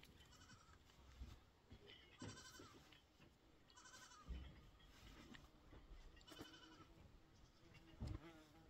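Goats bleating faintly, three short wavering calls a couple of seconds apart.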